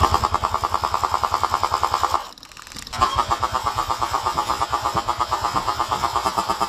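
Elite Force Beretta ARX 160 airsoft electric gun firing full-auto: a rapid, even rattle of shots for about two seconds, a short break, then another long burst from about three seconds in.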